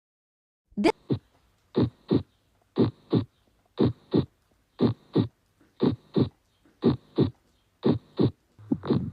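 Human heartbeat heard through a stethoscope: the first and second heart sounds as lub-dub pairs, about one beat a second, with quiet between beats.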